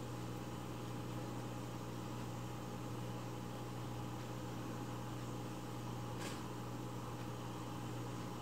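Steady low mechanical hum with an even hiss, like a fan or household appliance running, with one faint tick about six seconds in.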